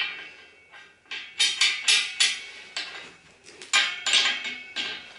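A radiator spanner working a chrome valve tail into a towel radiator's threaded port: a quick run of sharp metallic clinks with a slight ring, several a second, as the tool turns and is repositioned.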